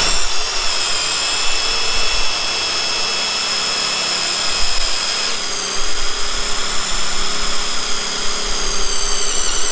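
Two cordless brushless impact drivers, a Milwaukee and a Skil, running flat out together as their 5/16-inch bits drill into a wooden beam. They make a steady high whine, which shifts partway through as the bits sink deeper.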